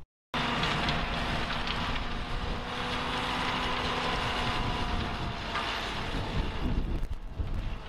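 Tractor engine running steadily as it pulls a de-stoner (stone separator) through the soil: a continuous hum over a rushing mechanical noise, easing slightly near the end.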